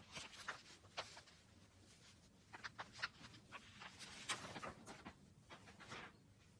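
Faint rustling of a taped paper sewing pattern and fleece fabric being handled, with scattered soft clicks and scrapes, busiest about four seconds in.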